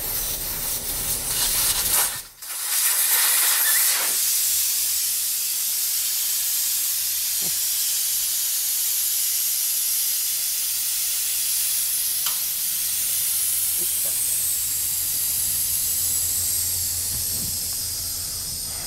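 Air hissing out of a car tire through its valve stem as the tire is deflated for demounting. The hiss breaks off for a moment about two seconds in, comes back stronger, and slowly weakens near the end as the pressure drops.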